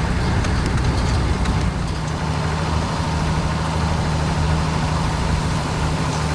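Motor vehicle driving, heard from inside: a steady low rumble with an even engine hum throughout.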